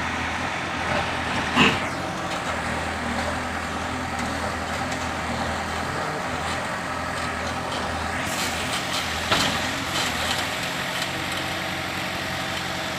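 Manitou backhoe loader's diesel engine running steadily while the machine works, with two sharp metallic knocks, the louder one about a second and a half in and another about nine seconds in.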